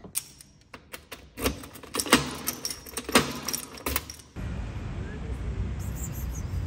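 Keys jangling and a key clicking as it turns in a door lock, a quick run of sharp metallic clicks and clatters. About four seconds in it gives way to a steady low outdoor rumble.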